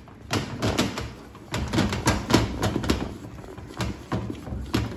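A wooden cooking stick stirring and working thick semovita dough in a steel pot, knocking and scraping against the pot's sides in an irregular run of clacks, several a second.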